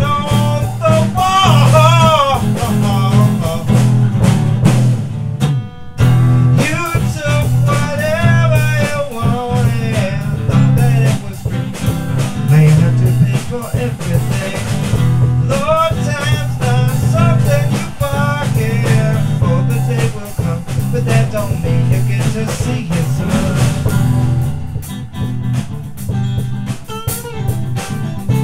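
Two-piece blues-rock band playing: electric guitar with a bending lead line over a drum kit. There is a brief break about six seconds in.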